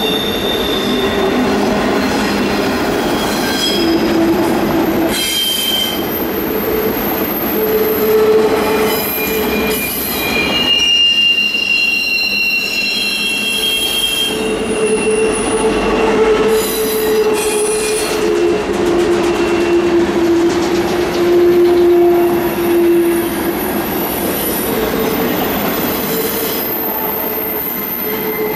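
Freight train cars rolling past, their steel wheels squealing against the rails in several high-pitched tones that come and go and shift in pitch, over a continuous rolling rumble.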